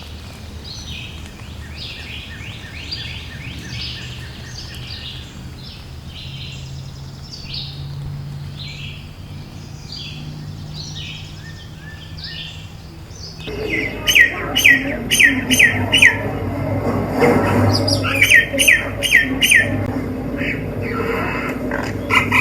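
Birds singing: a quick run of high chirping notes, then about halfway through a louder series of sharp repeated notes with a low hum beneath.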